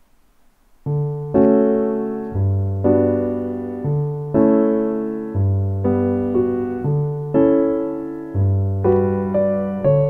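Background piano music: after a near-silent first second, slow chords, each struck and left to fade, change about once a second.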